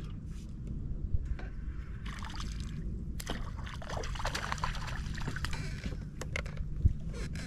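Water splashing and trickling at the side of a small fishing boat, over a steady low rumble, with a few sharp knocks near the end.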